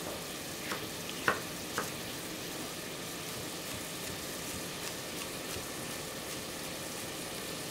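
Diced onion and carrot frying gently in oil in a saucepan: a steady, soft sizzle. A few light knife taps on a chopping board come in the first two seconds.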